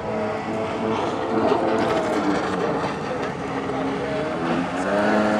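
Stand-up jet ski engine revving up and down in pitch as it carves through turns, with a rush of water spray beneath it.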